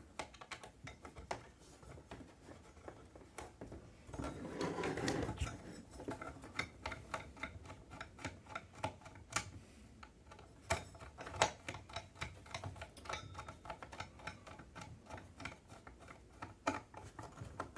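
Screwdriver and small metal and plastic parts being handled as a soldering-iron holder is screwed onto the side of a soldering station: a long run of light, irregular clicks and ticks, with a brief scrape about four seconds in.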